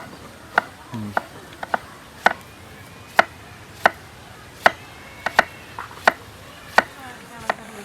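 Knife chopping pineapple, a series of sharp, irregular knocks about one or two a second.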